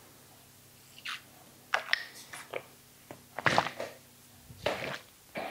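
Water bottle handled after a drink: a string of short clicks and knocks, the loudest about halfway through and another about a second before the end.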